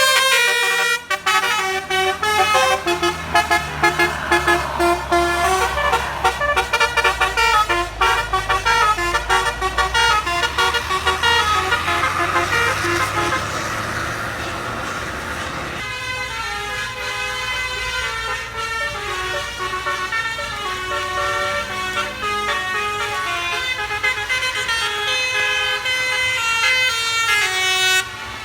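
Bus 'basuri' telolet horn, a multi-trumpet air horn playing stepping melody tunes, over the low rumble of the bus in the first half. About halfway through the rumble drops away and a different tune takes over.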